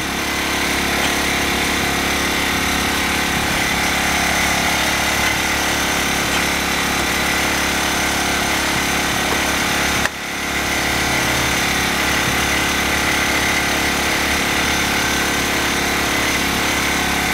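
Ryobi RYi1000 inverter generator's small four-stroke engine running steadily, dipping briefly about ten seconds in.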